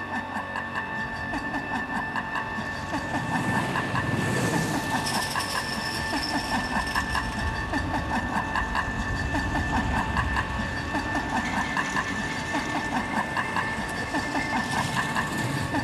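Background music with a steady beat under held tones.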